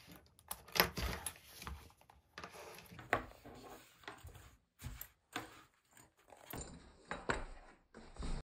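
Metal swivel snap hooks clinking and clicking as they are clipped onto the leather bag, with handling rustle of leather and webbing strap between the clicks. The sound cuts off suddenly near the end.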